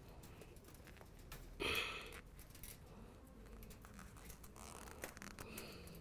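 Faint rustling and light ticks of galvanized tie wire and hexagonal gabion mesh being handled and twisted by gloved hands, with one short rustle about two seconds in.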